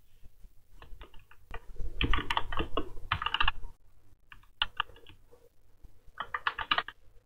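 Typing on a computer keyboard: several short bursts of quick keystrokes with brief pauses between them.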